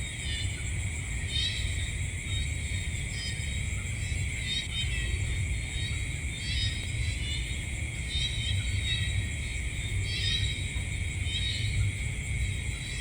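Night insect chorus: steady high-pitched trilling, with short chirps repeating about every second, over a low steady rumble.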